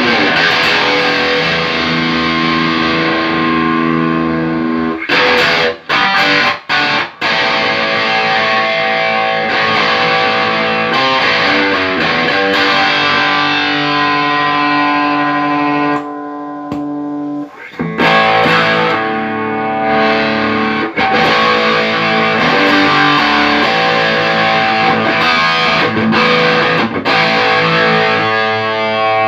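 Electric guitar played through a Tech21 SansAmp GT2 amp-emulator pedal, which is working again after a repair. Distorted chords ring out, with a few short stops about six seconds in and a quieter held passage about two-thirds of the way through.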